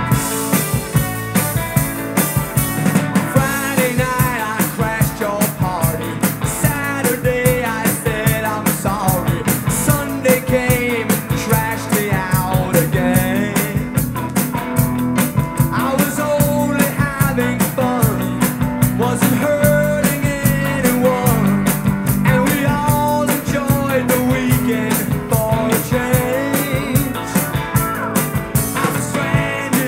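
A rock song played back from a vinyl LP on a turntable: a full band with a steady driving drum beat and electric guitar, loud throughout.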